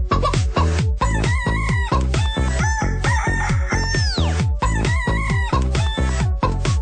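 Dance track made of chopped chicken clucks and crows over a fast, regular kick drum beat. About four seconds in, a falling swoop sweeps down through the mix.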